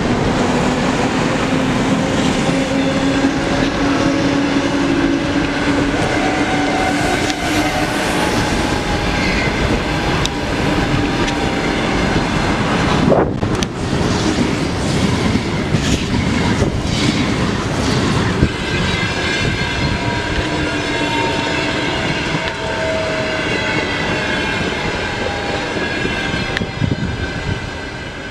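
EP20 electric locomotive and its passenger coaches passing at speed: a steady electric whine that slowly rises, over wheels clattering on the rails. About halfway through, an ES1P Lastochka electric train passes close by and adds its own whine of several tones. The noise fades near the end as the train moves away.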